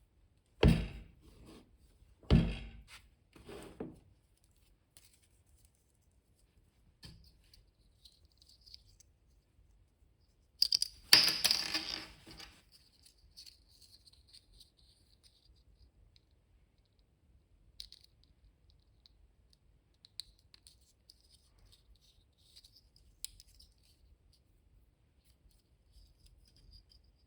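Small objects and packaging being handled: three sharp knocks or rustles in the first few seconds, then a louder scraping rustle about eleven seconds in, with scattered light clicks afterwards.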